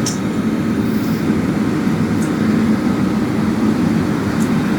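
Steady low rumble of a fire engine running at the scene, its engine driving the pump that feeds the hoses.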